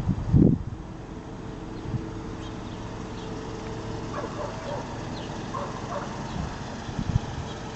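2010 Scion xB's 2.4-litre four-cylinder engine idling steadily, with a brief loud rumble about half a second in.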